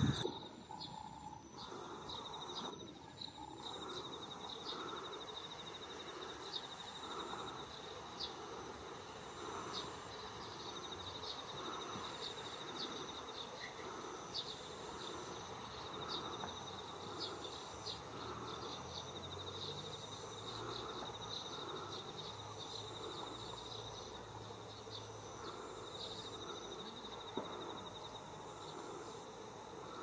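Insects trilling steadily at a high pitch, with a softer, lower swelling sound repeating about every second and a half underneath.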